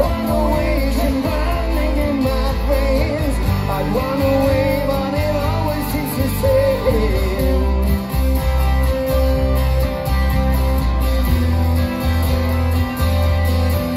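Live acoustic band of strummed acoustic guitars and an upright double bass playing a rock song, with a lead vocal singing over them; the singing drops out about halfway and the guitars carry on.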